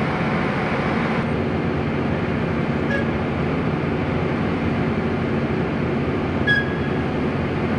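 Steady machinery rumble with a low hum, and a few faint metallic clinks, about three seconds in, six and a half seconds in, and just after the end.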